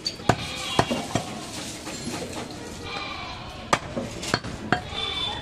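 Sharp knocks of a butcher's blade chopping goat meat on a wooden stump block: four quick strokes at the start, then three more about midway, with goats bleating in the market background.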